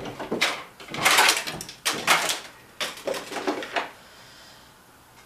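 Hard plastic body of a Kids Trax Lightning McQueen ride-on toy being handled and turned over: a run of knocks, scrapes and rattles that die away after about four seconds.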